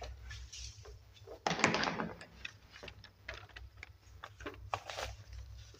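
A whiteboard duster rubbing on a whiteboard, with one louder wipe about one and a half seconds in, among scattered light clicks and knocks.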